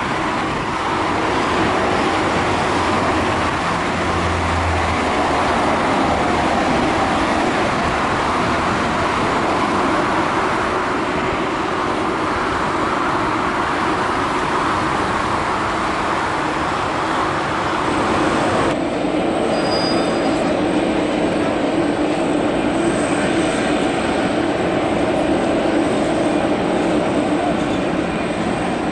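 Boeing 747-400 jet engines roaring as the airliner rolls out on the runway after landing. About 19 seconds in, the sound cuts to a taxiing 747-400's engines at low power, a steadier hum with a thin high whine.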